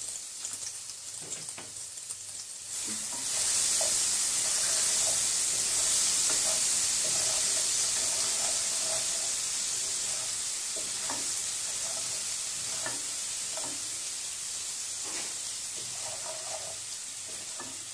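Crushed garlic and salt frying in hot oil in an aluminium pan, sizzling as it is cooked toward golden, stirred with a wooden spoon. The sizzling grows suddenly louder about three seconds in, then slowly eases.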